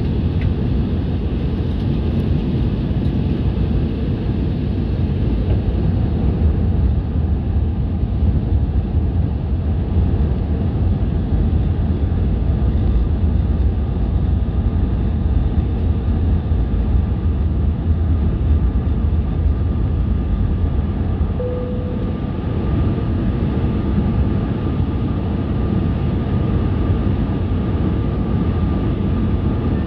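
Airbus A320 heard from inside the passenger cabin in flight: a steady, deep rumble of engines and airflow. A thin steady whine joins it about two-thirds of the way through.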